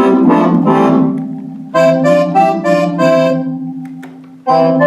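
Roland FR-8X digital accordion playing chords in a Cordovox-style layered sound: an accordion register over a Lowrey-type organ voice. A low organ tone holds steadily underneath while the chords above it come in twice, about two seconds in and again near the end, fading away between them.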